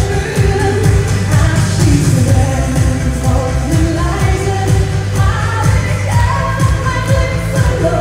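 A pop song sung live into a microphone over music with a steady beat, played through the PA speakers.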